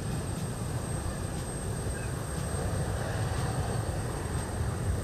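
Steady low rumble of aircraft running on an airport apron, with a faint, steady high whine above it.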